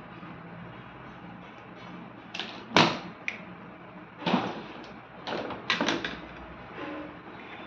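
A handful of sharp clicks and knocks from hand work on a microwave oven's control board as its faulty relay is taken out, the loudest about three seconds in, over a faint steady hum.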